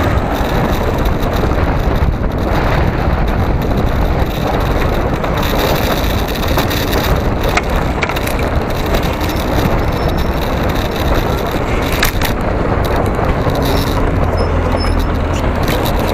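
Steady wind and road noise of travel along a rough road, with a few sharp knocks or rattles from the mount. A deeper hum comes in near the end.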